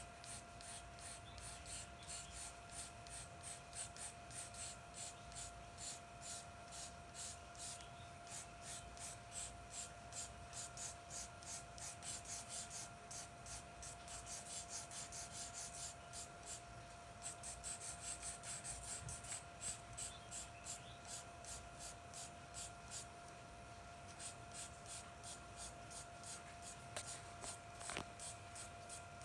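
Charcoal pencil scratching on paper in quick, rhythmic flicking strokes, about three a second, as hair strands are shaded, with a brief lull about halfway through. A faint steady hum runs underneath.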